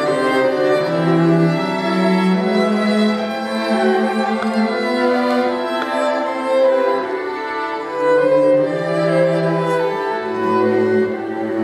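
String quartet of two violins, viola and cello playing held bowed chords that move slowly from note to note; the cello drops to a lower note near the end.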